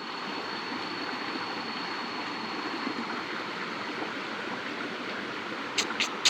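Steady rush of flowing water. A faint high steady tone fades out over the first few seconds, and three short sharp clicks come near the end.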